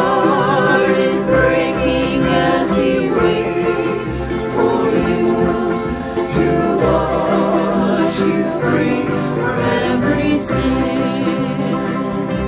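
A small mixed group of men's and women's voices singing a worship song together, accompanied by strummed acoustic guitars.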